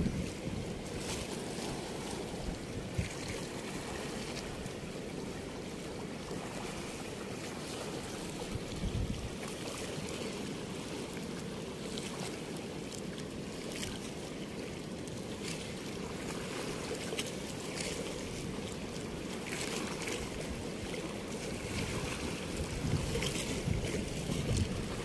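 Steady rush of overflowing river water pouring through a weir's sluice gate, with faint scattered ticks over it.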